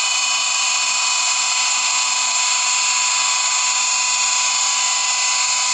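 A small high-speed motor whirring steadily, a high-pitched hiss with a thin whine that does not change.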